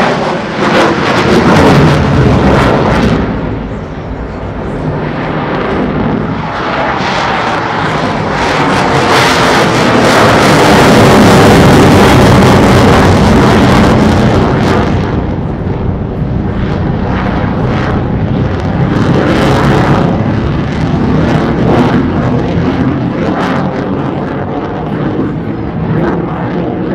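F-16 fighter's General Electric F110-GE-129 afterburning turbofan running in afterburner during a high-G pass, a ragged, crackling jet roar that builds to its loudest about halfway through and then eases off toward the end.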